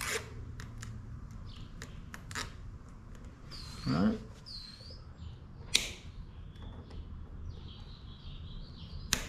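Plastic zip ties and a sensor wire being handled and fastened on a bicycle frame: scattered sharp clicks and snaps, two of them louder about six and nine seconds in. High chirps sound in the background, and a short low voice sound comes about four seconds in.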